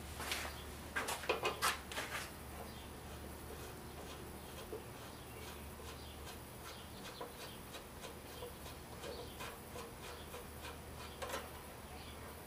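Small metal clicks and taps of a hand tool turning a 5/16 screw on a Briggs & Stratton lawnmower carburetor, a few sharper clicks in the first two seconds, then faint scattered ticks over a low steady hum.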